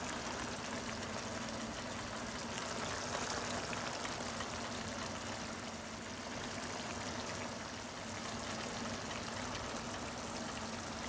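Ground beef sizzling and bubbling in a skillet, simmering in a pool of its own rendered fat and juices; a steady, even sound.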